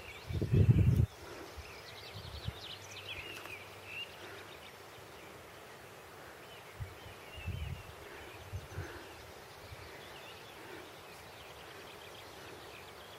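Songbirds chirping and singing over a quiet rural background. A brief loud low rumble comes in the first second, and a few soft low thumps follow around seven to nine seconds in.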